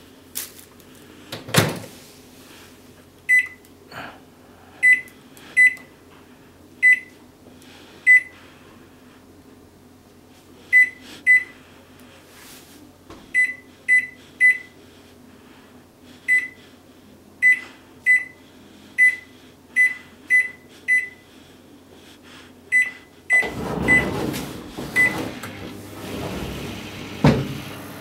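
Microwave oven door shut with a knock, then about twenty short high beeps, one for each press of the control-panel buttons, as a defrost time is keyed in. Near the end the oven starts up and runs with a steady hum.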